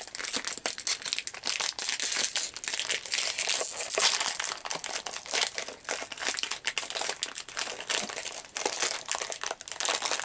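Plastic wrapper of a king-size Oreo package crinkling and crackling steadily as it is handled and opened.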